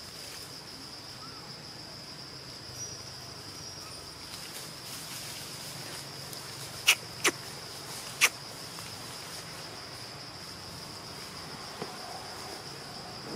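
Steady high-pitched drone of a forest insect chorus. Three sharp clicks come close together about halfway through.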